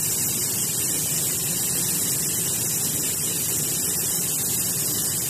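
Air hissing steadily out of a tire through a quick-connect automatic tire deflator as it deflates the tire toward its set pressure of 16 psi.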